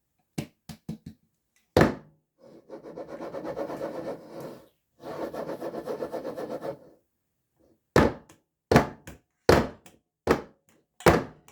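A filled cake pan is knocked against a countertop over and over: a few knocks, two stretches of fast rattling, then loud single knocks about every second near the end, settling the batter and knocking out air bubbles.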